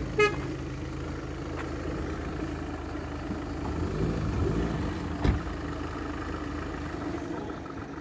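Car engine idling steadily, with a short click near the start and a single knock about five seconds in.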